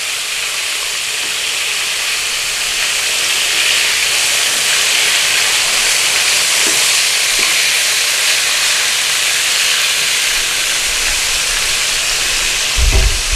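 Flour-dusted fish pieces frying in hot oil in a wok, a steady loud sizzle, with a low bump near the end.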